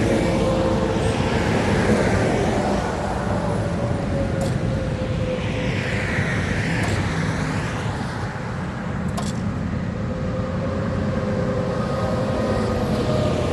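Highway traffic passing close by, each vehicle rushing past in a rise and fall, about three passes in all, over a steady engine hum.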